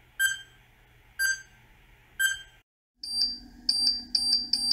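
Countdown timer sound effect: three short electronic beeps, one a second, then after a brief gap a fast repeating high-pitched alarm, about four or five pulses a second, as the countdown nears zero.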